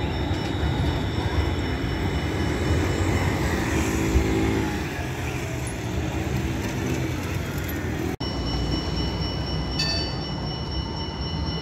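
A tram running on its rails with a steady rumble. Near the end, high steady squealing tones come in, typical of tram wheels or the tram's drive.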